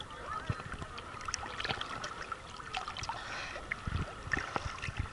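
Small sea waves lapping and splashing against a camera held at the water's surface, with many short irregular clicks and plops of water.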